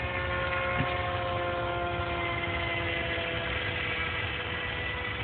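Electric motor and pusher propeller of an RC model plane flying overhead, a steady whine of several tones whose pitch mix shifts slightly as it flies, over a low rumble.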